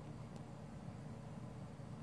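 Quiet room tone: a faint, steady low hum, with one faint tick about a third of a second in.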